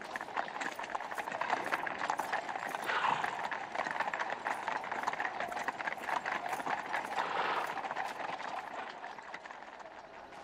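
Many clattering steps on a hard street as a group moves along, with a murmur of crowd voices that swells twice.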